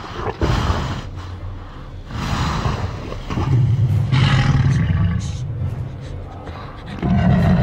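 Film sound effect of a Tyrannosaurus rex growling low in several long breaths. The loudest surge comes about four seconds in, and another near the end.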